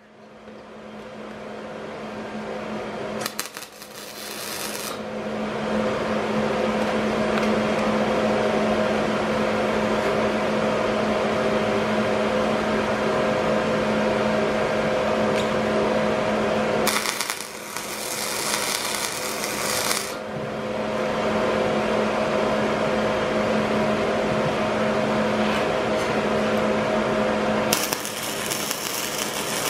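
MIG welder arc crackling and hissing in three separate tack welds, the last near the end, over a steady background hum.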